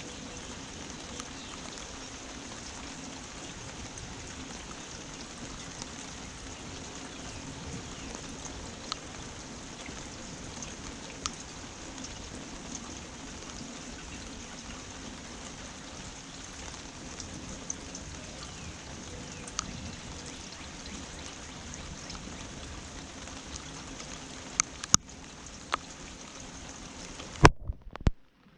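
Steady rainfall with scattered individual drops ticking close by, and a few louder knocks near the end.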